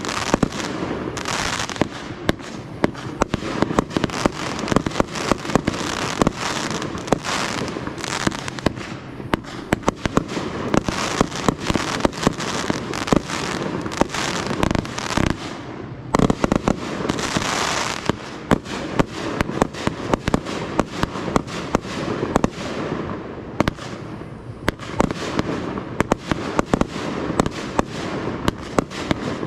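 Fireworks display going off continuously: many sharp bangs and reports, several a second, over a steady crackling hiss, swelling louder in a few barrages.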